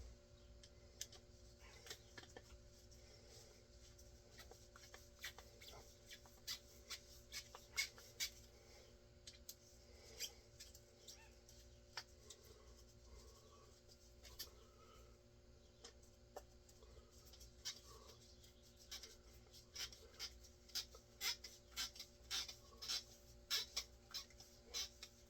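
Small hand-work clicks and scrapes of a screwdriver fastening a shotgun's butt pad screws, sparse at first, then a quick run of clicks over the last several seconds. A faint steady hum underneath.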